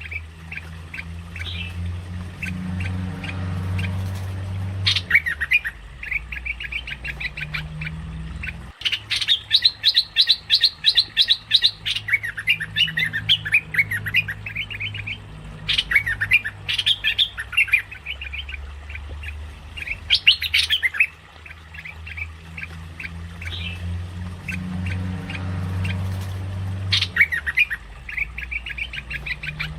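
Merbah lekir, a bulbul, calling in repeated bursts of rapid chattering notes, each burst lasting a few seconds, used as a bird-luring call. A low rumble swells and fades underneath.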